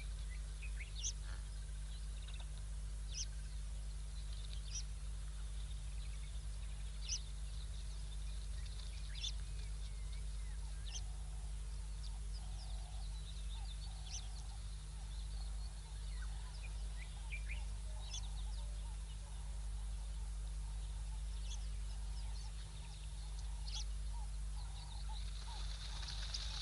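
Wild birds giving short, high chirps every second or two over a steady low hum from the outdoor camera's microphone. Near the end a louder high hiss comes in.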